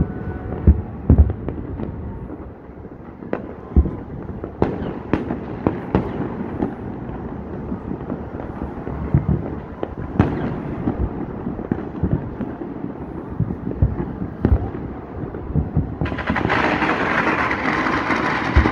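Fireworks and firecrackers going off all across a city: irregular bangs, often one or two a second, over a continuous rumble of more distant pops. A louder steady hiss joins near the end.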